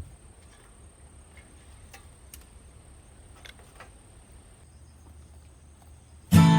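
A wood fire ticking with scattered faint crackles and pops over a faint steady high-pitched whine. Near the end, strummed acoustic guitar music starts loudly.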